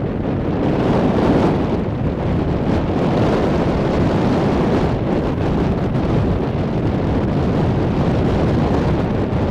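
Wind buffeting the microphone: a steady, loud rumbling hiss with no distinct events.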